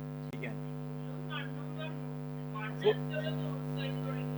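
Steady electrical mains hum with faint, distant voices talking over it, and a short knock about three seconds in.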